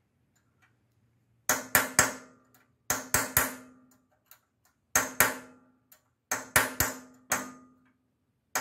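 Hammer tapping a steel punch to drive a loose valve guide back into the aluminum cylinder head of a Briggs and Stratton engine, after the guide had pushed out of the head. About a dozen sharp strikes come in quick groups of two or three, starting about a second and a half in, each ringing briefly.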